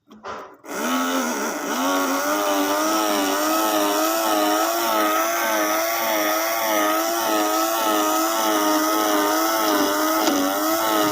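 Small motor of a miniature sifting machine starting up and running with a steady whine whose pitch wavers rhythmically up and down.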